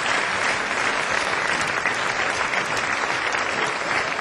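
Audience applauding steadily in welcome as a performer comes on stage.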